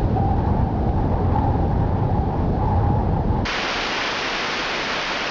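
Steady rumbling noise, heavy in the low end, that switches abruptly about three and a half seconds in to an even, brighter hiss.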